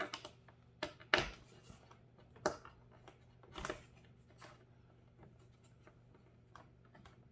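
A few light clicks and knocks, roughly a second apart, from a plastic wing strut being pushed onto its mount and clipped on a foam RC trainer plane, over a faint steady hum.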